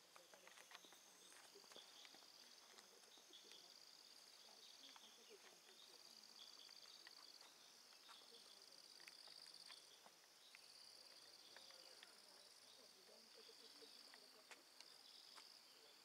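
Faint high-pitched chirring of forest insects: overlapping trills that swell and fade every second or two, with a few soft ticks between them.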